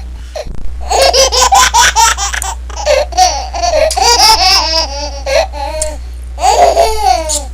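A baby laughing in repeated high-pitched bursts, starting about a second in, over a steady low hum.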